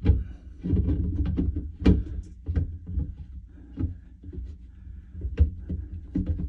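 Irregular knocks, clicks and scrapes of a plastic well-water filter housing being handled and lifted back into place under its head.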